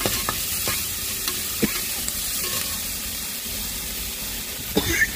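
Onions frying in hot oil in a pressure cooker pot: a steady sizzle with scattered sharp clicks, a few in the first two seconds and a few more near the end.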